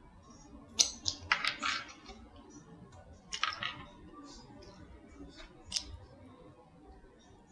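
Close-up eating sounds of a cauliflower-crust pizza: bites and chewing with sharp, wet smacking clicks that come in a few short clusters, about a second in, around three and a half seconds, and once near six seconds.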